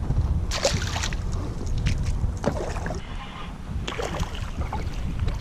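Wind rumbling on the microphone, with a few short splashes of water from a hooked largemouth bass thrashing at the surface beside the kayak.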